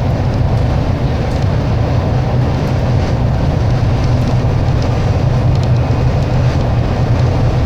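Alexander Dennis Enviro 300 bus on a MAN chassis running, a steady low engine drone with no change in level.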